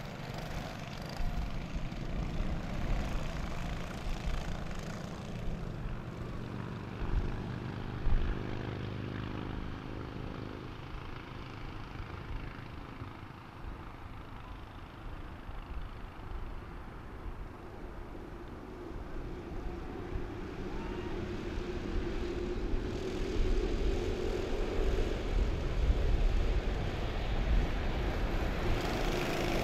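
A pack of racing karts' small single-cylinder Honda four-stroke engines running at race speed, a massed buzzing that swells and rises in pitch toward the end as the field comes closer. A brief thump about eight seconds in.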